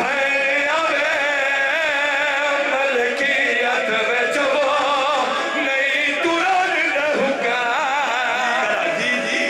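Men chanting a sung Shia devotional recitation, the voices holding and wavering on long melodic lines.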